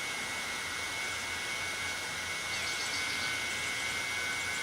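Vacuum cleaner running steadily, a noisy rush with a high, even motor whine, as it is used to suck up gasoline.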